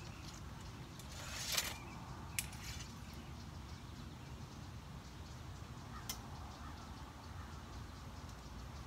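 Faint handling of a recurve bow and arrow: a short sliding rustle about a second and a half in as an arrow comes out of the hip quiver, then a couple of sharp clicks as it is set on the bow and nocked. A low steady background rumble sits under it.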